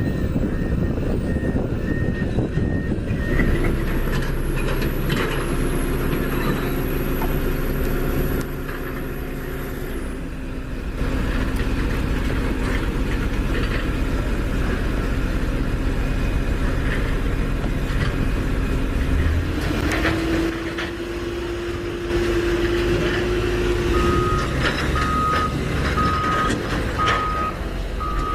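Heavy vehicle engine running steadily, with a reversing alarm beeping about once a second near the end and a higher intermittent beep at the start.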